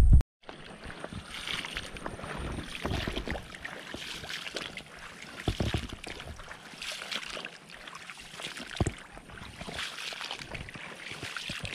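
Footsteps wading through wet marsh grass and shallow water: an uneven swishing and sloshing, with a couple of low thumps.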